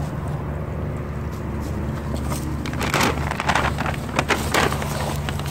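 A plastic bag of dried mealworms crinkling and rustling in a handful of short crackles from about three seconds in, over a steady low rumble.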